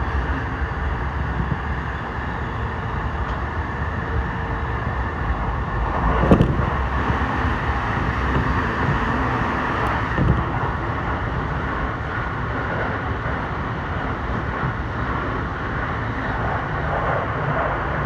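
Steady running noise of a commuter train heard from inside the carriage: wheels on rails and car body rumble, with a single loud knock about six seconds in and a lighter click a few seconds later.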